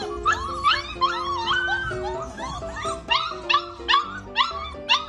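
A dog whining and yipping in a rapid string of short, rising-and-falling cries, over background music with steady held notes.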